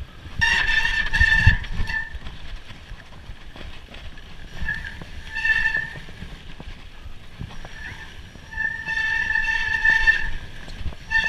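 Mountain bike disc brakes squealing in several bursts of up to a second and a half. Each burst holds the same high pitch, over a steady low rumble from the ride.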